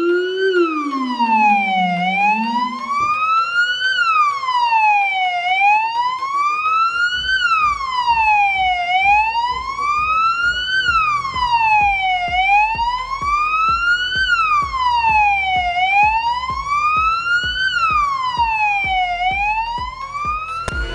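Electronic siren of a Ford Ranger fire-service light rescue vehicle sounding a slow wail, its pitch rising and falling about every three and a half seconds. During the first two seconds a second, lower tone dips and climbs back.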